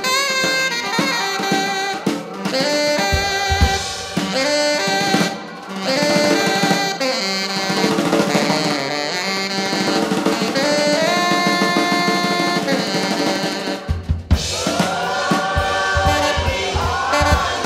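Live jazz band: a tenor saxophone playing long held and bending notes over a drum kit, with electronic textures layered in. About fourteen seconds in the music drops out for a moment and returns with heavier low drum hits.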